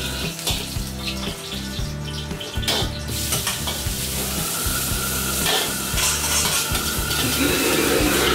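Metal ladle knocking and scraping against a steel wok while food sizzles in hot oil during stir-frying; the sizzling grows louder in the last second or so.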